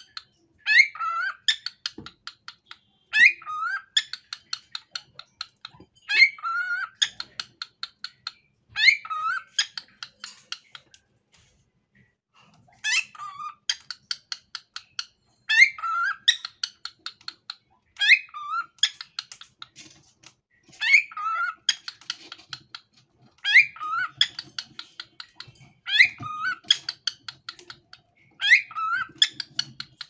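Pet cockatiel singing and whistling: a repeated phrase every two to three seconds, each a few sliding whistled notes followed by a fast run of short chattering notes, with a brief pause near the middle.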